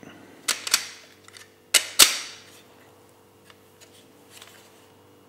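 Pieces of a Lomography Digitaliza 120 plastic scanning mask clicking against each other in the hands: two quick clicks about half a second in, two more around two seconds in (the last the loudest), then faint light ticks.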